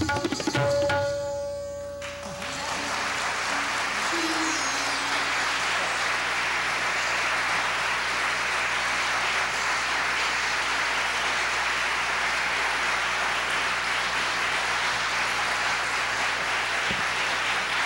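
Tabla and sitar music ends in the first second with a final stroke and a held note, and then an audience applauds steadily.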